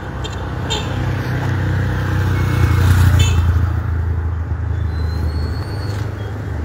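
A car driving past on the street: engine and tyre noise swelling to a peak about three seconds in, then fading away.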